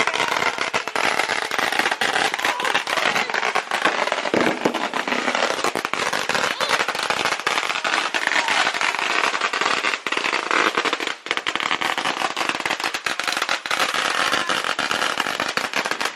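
Fireworks crackling: a dense, unbroken rapid string of small pops that stops abruptly at the end.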